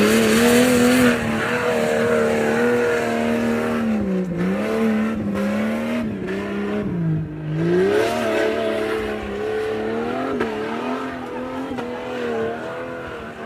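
Off-road 4x4 engine running at high revs under load, its pitch dipping briefly about four seconds in and again around seven seconds in as the throttle eases, then rising back.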